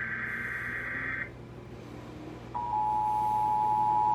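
Emergency Alert System broadcast tones: a burst of buzzing digital data tones from the alert header ends about a second in, and after a short pause the steady attention tone starts about two and a half seconds in and holds.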